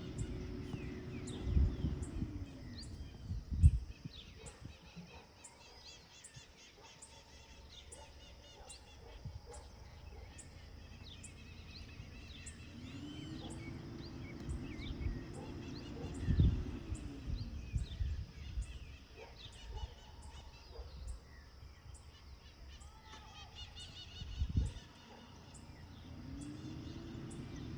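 Several birds chirping and calling, with a faint high ticking about once a second. A low hum swells, holds and fades three times, and a few heavy low thumps hit the microphone.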